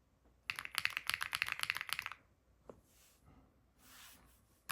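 Fast typing on a KiiBOOM Loop 65 aluminium-case mechanical keyboard: a quick flurry of keystrokes from about half a second in until about two seconds, then a single keystroke.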